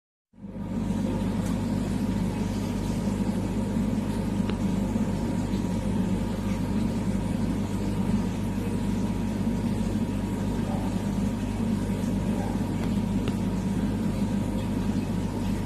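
Aquarium pump humming steadily, with a low electrical drone under an even wash of noise, starting about a third of a second in.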